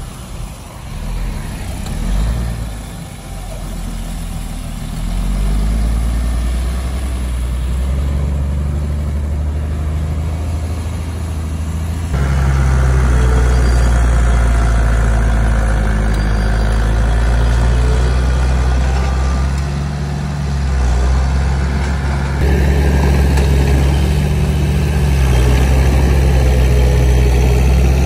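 Heavy diesel engine of earth-moving machinery running steadily, its low engine note shifting a little in pitch. The sound jumps abruptly to a louder, fuller engine note about twelve seconds in, and again about ten seconds later.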